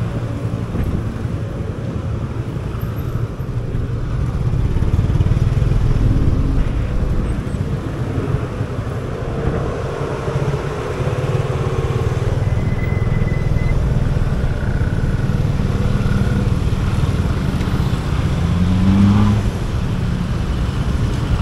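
Motorcycle engine running under way through city traffic, with road and traffic noise; an engine revs up briefly near the end.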